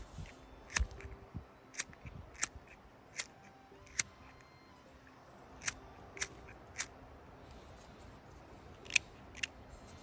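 Zippo EFK's flint-wheel sparker being struck over and over to light a tinder wick: about a dozen short, sharp scratchy clicks at irregular intervals, with a longer pause before the last two.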